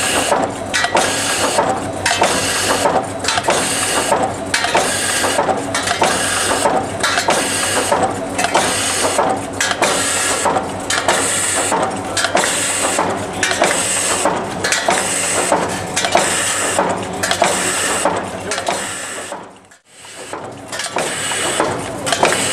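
OMAS P808 TS bucket-handle making machine running, a rhythmic mechanical clatter repeating about one and a half times a second. The sound drops out briefly about twenty seconds in, then picks up again.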